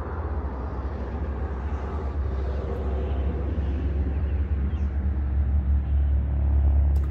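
Distant road traffic: a steady low rumble that grows slowly louder.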